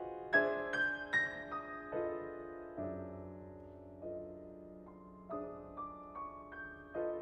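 Solo grand piano played softly: a few high notes struck in quick succession in the first second, then a low chord about three seconds in that rings and fades under sparse single notes.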